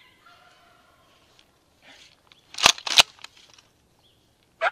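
Wild turkeys calling close by: fainter calls early on, then two loud, sharp notes about two and a half seconds in.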